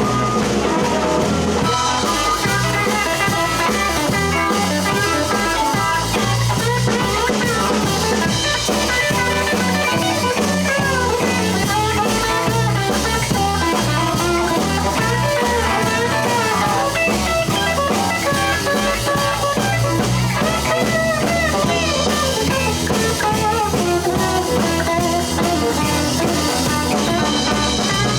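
Live blues band playing an instrumental break: electric guitar, bass and drums on a steady beat, with a lead line bending up and down in pitch.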